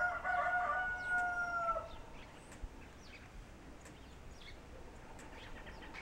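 Kencana rooster, a homegrown Ameraucana × Barred Rock hybrid, crowing once: a drawn-out crow held on a steady pitch that ends just under two seconds in. Faint high chirps follow.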